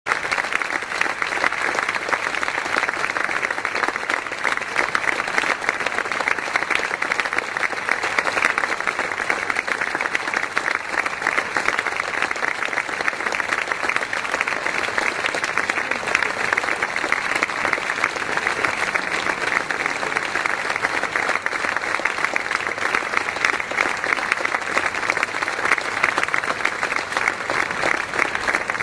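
Applause from a large crowd: many hands clapping in a dense, steady patter that holds at an even level throughout.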